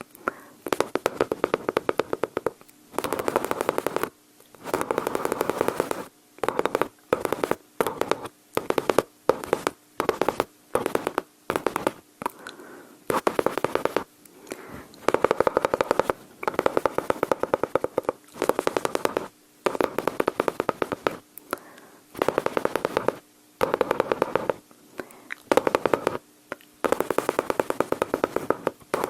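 Close-miked mouth sounds imitating automatic gunfire: rapid clicking rattles in repeated short bursts with brief pauses between them.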